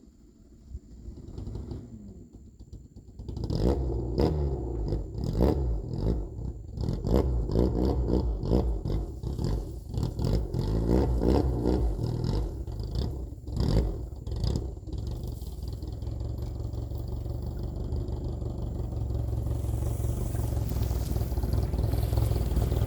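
Fiat 147 pickup's small four-cylinder engine pulling at low revs, near idle, as the truck moves slowly over rough ground, with many knocks and clatter from about three seconds in to halfway through; after that the engine runs more steadily and slowly gets louder.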